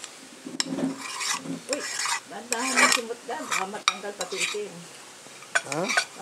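A metal spoon scraping and clicking against a metal pan and a plate as food is scooped, in a run of short scrapes.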